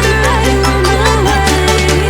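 Background music: an electronic pop track with a steady beat and long held bass notes. The bass shifts to a new note about a second and a half in, under a melody that bends in pitch.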